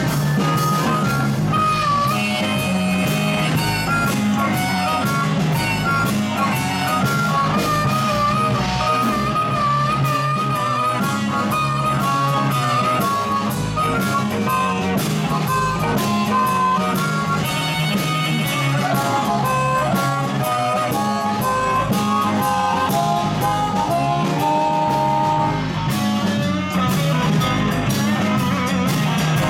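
Live electric blues band playing: amplified harmonica played into a cupped microphone over electric guitars and a drum kit.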